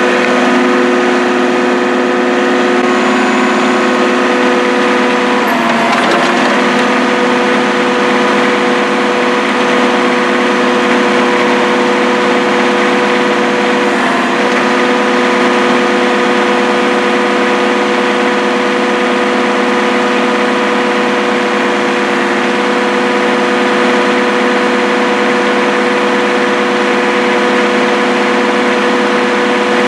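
Engine of a small digger running steadily, an even drone, while its hydraulic arm presses the bucket down to point-load a concrete slab. A short noise breaks in about six seconds in as the bucket shifts.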